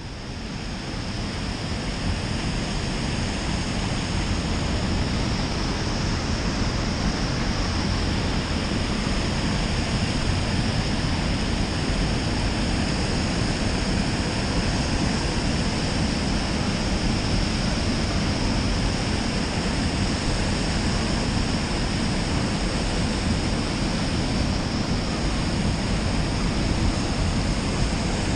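Steady rush of turbulent river water churning below a dam spillway, an even wash of noise with no breaks.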